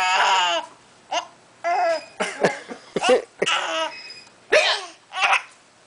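A young child giggling in short high-pitched bursts while having the hiccups, with several sharp hiccups cutting into the giggles around the middle.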